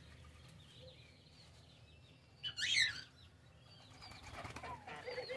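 Aviary birds, mostly quiet, with one short loud burst of bird sound about two and a half seconds in and faint short chirps starting up near the end.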